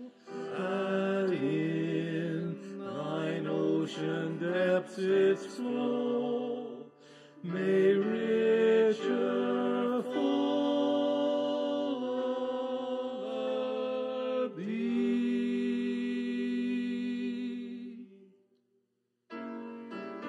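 Mixed vocal quartet singing a gospel song in harmony, closing on a long held chord that cuts off about 18 seconds in. After a short pause a piano begins just before the end.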